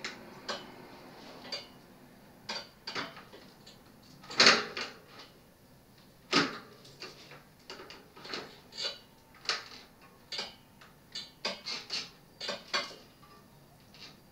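Scattered metallic clicks and clunks of a bicycle front wheel and its brake being handled as the wheel is fitted into the fork. The knocks come irregularly, with the two loudest near the middle.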